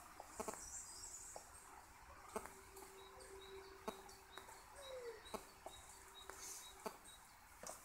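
Quiet woodland with faint bird chirps, a faint steady tone and a few soft clicks scattered through.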